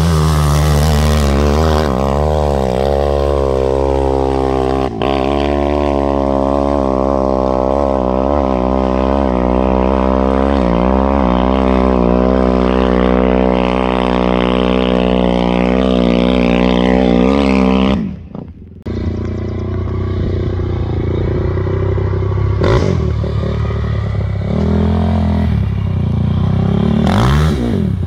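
Quad bike engines: one quad revving up and down as it rides the sand dunes, over a steady low engine drone. The sound drops out briefly about two-thirds of the way through, then the engine noise carries on.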